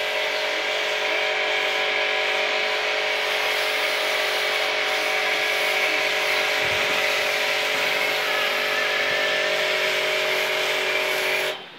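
Pressure washer running with a foam cannon lance spraying thick foam, a steady hiss over a constant hum; it cuts off suddenly near the end.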